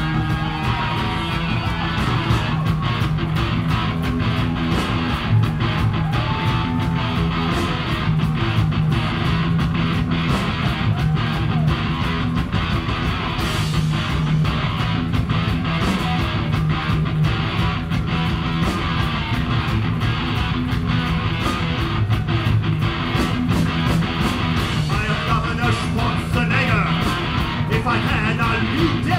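Live heavy rock band playing loud: distorted electric guitar, bass and a steady, driving drum beat, recorded from the audience in a club.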